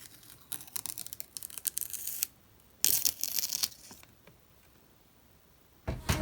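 Plastic or paper packaging being torn and crinkled in two crackling bursts, then a short quiet gap. Music comes in near the end.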